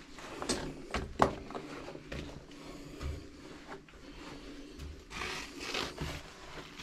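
Scrapes and sharp knocks in a small echoing space: a cluster of knocks about a second in, the loudest among them, and a longer rustling scrape near the end.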